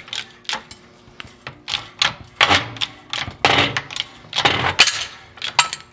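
Harbor Freight A-frame benchtop press being worked to push a bearing and seal out of a power steering valve housing through an 18 mm socket. It gives a run of sharp metal clicks and clanks, with louder grating strokes about once a second in the second half.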